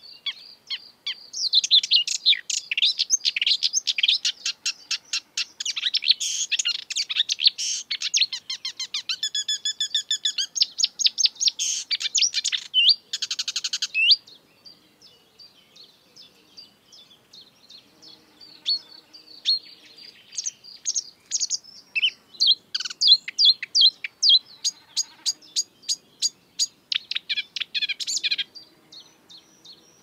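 Marsh warbler singing a rapid, varied song of chattering and whistled notes mixed with buzzy, nasal phrases. It drops to a few soft notes about halfway through, then picks up again and stops shortly before the end.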